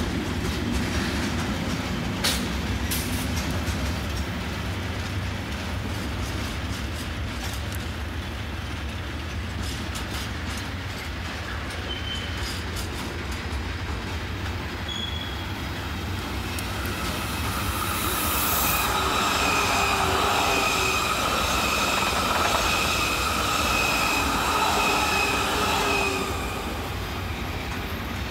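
Freight train rolling past with a steady low rumble and a few sharp clicks from the wheels on the rails. A little past halfway it grows louder and the wheels squeal in several steady high tones. The squeal fades shortly before the end.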